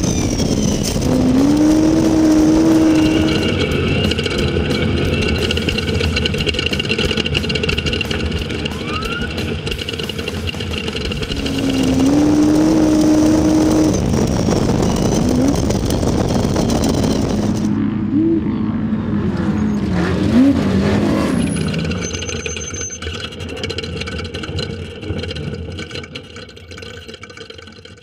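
Single-seat Class 1 desert race car's engine revving hard and running at speed over a broad rush of noise, its pitch climbing and holding twice, then swinging up and down. The sound fades out near the end.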